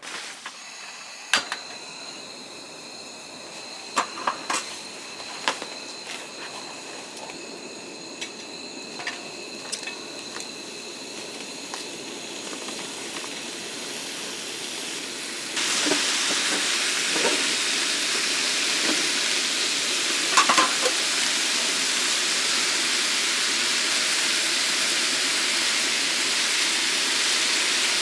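Food sizzling in a hot pan, the sizzle growing and then jumping louder about halfway through, with a few sharp clicks of a utensil against the pan.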